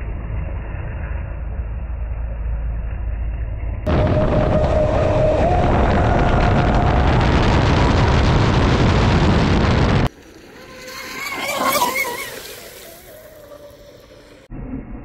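A steady low rumble for the first few seconds, then a sudden cut to a Traxxas M41 RC racing boat at speed: a loud rush of water spray with its brushless motor's whine, which steps up slightly in pitch. About ten seconds in it cuts again to the boat passing by, its whine rising and then falling away.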